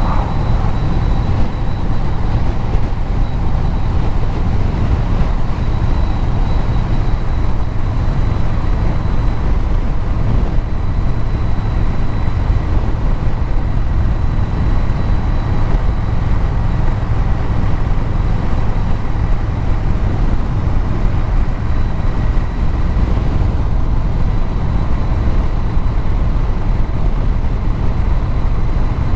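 A vehicle's engine and exhaust running steadily at cruising speed, with road and wind noise, a low rumble that holds even throughout. A faint thin high whine sits above it.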